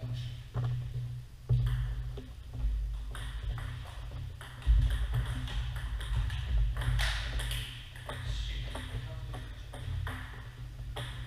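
Table tennis ball clicking off paddles and the table during a rally, a quick run of light clicks over a steady low rumble.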